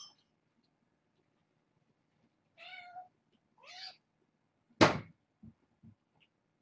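Kitten meowing twice in short, high calls, the second bending in pitch. About five seconds in comes a sharp thump, the loudest sound, followed by two or three soft knocks.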